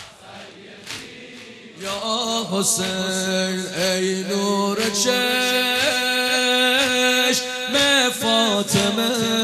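Mourners' rhythmic chest-beating (sineh-zani), about one strike a second. From about two seconds in, loud chanting of a Persian noha lament sets in with long held notes, over the beating.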